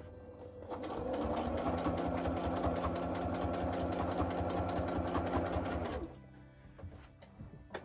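Electric domestic sewing machine stitching in one continuous run, a fast, even rattle of needle strokes that starts about a second in and stops about a second before the end.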